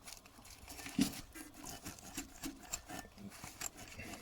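Hand tools working the bolt and nut that hold the shifter to a Getrag V160 transmission: a run of small metallic clicks and taps, with one sharper knock about a second in.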